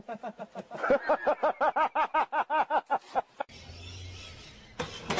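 A person's voice in a rapid, even run of short pulses, about five a second, for some two and a half seconds. Then a steady hiss with a low hum, and a sudden louder noise near the end.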